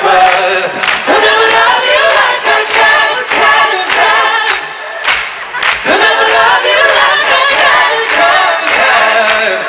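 Live pop band music with singing, many crowd voices joining in as a sing-along.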